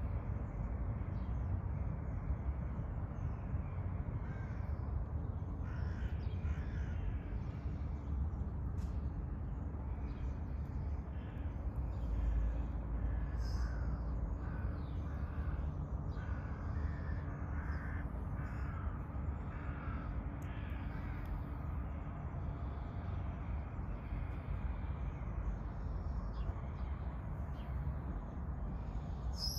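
Kea, the New Zealand mountain parrot, calling: a run of short, repeated calls over about fifteen seconds, over a steady low rumble.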